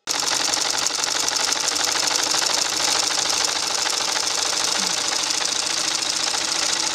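Sewing machine running steadily at speed, its needle stitching through fabric with a fast, even mechanical clatter.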